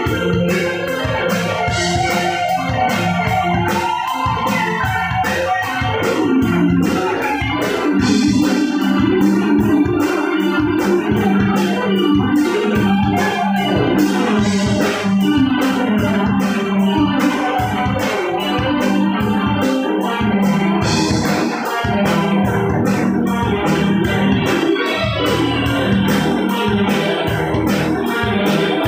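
Live rock band playing an instrumental: electric guitar and organ-toned keyboard over drums and bass guitar, with a steady drum beat and held, sliding notes.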